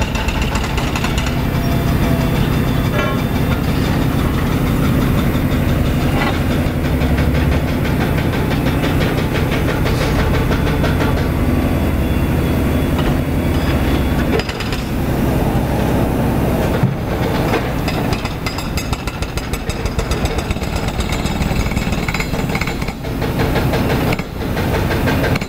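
Hydraulic breaker on an excavator hammering concrete in a fast, steady rattle, over diesel excavator engines running.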